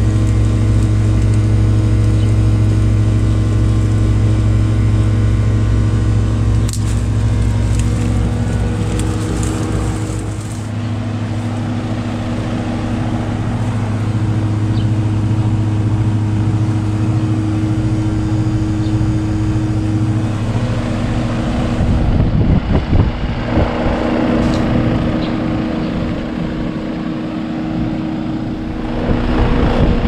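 2011 Goodman 2.5-ton package heat pump running in cooling mode, with a loud, steady hum over the compressor and condenser fan. The owner suspects the contactor or the blower is causing the hum. A rougher rush of fan air grows stronger about two-thirds of the way through.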